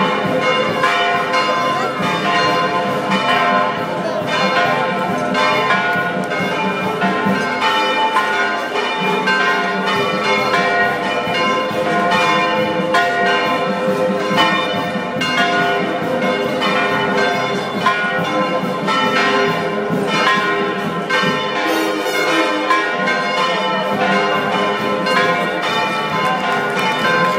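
Church bells ringing a continuous festive peal for the procession, with many strikes overlapping into a steady, dense ringing.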